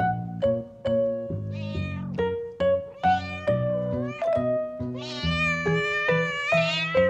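Background music with a steady stepped bass line, with cat meows over it; the longest meow is drawn out from about five seconds in.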